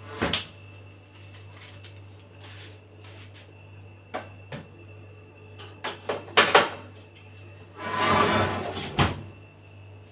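An oven door is opened and a metal baking tray slid in, giving a cluster of sharp clatters and knocks about six seconds in. A longer rattle ends in a knock as the door is shut near the end.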